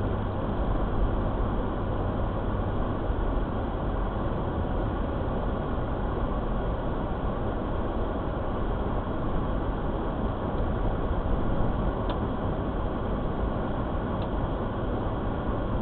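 Steady road and engine rumble heard from inside a moving car, even in level, with two faint ticks in the last few seconds.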